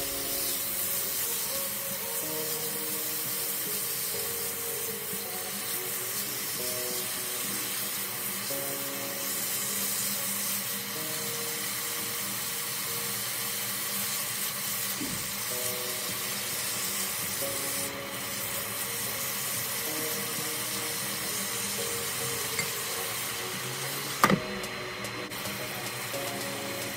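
Beef strips sizzling in a nonstick frying pan as a silicone spatula stirs and scrapes them around, over soft background music. A single sharp click near the end.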